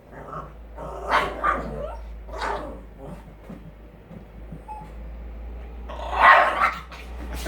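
Jack Russell puppy barking at balloons: a few short barks in the first two and a half seconds, then a louder, longer one about six seconds in.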